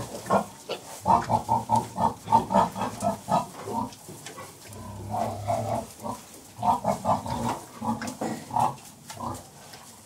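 Pigs grunting in a farrowing pen: two runs of quick, rhythmic grunts, about four or five a second, with a longer drawn-out grunt between them about five seconds in.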